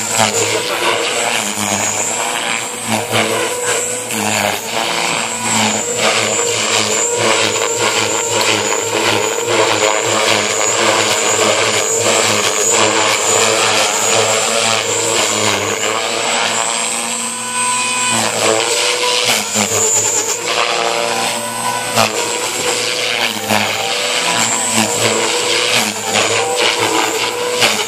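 JR Forza 450 radio-controlled helicopter in flight, its rotor and motor making a steady high whine that rises and falls in pitch as it manoeuvres.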